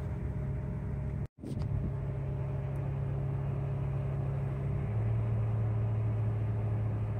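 Vehicle engine running steadily, a low hum heard from inside the vehicle, whose pitch steps down slightly about five seconds in. The sound cuts out completely for a split second a little over a second in.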